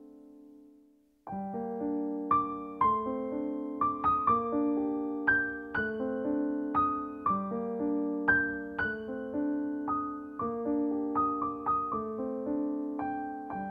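Background piano music. One passage dies away, and about a second in a new one starts with a steady run of struck, ringing notes.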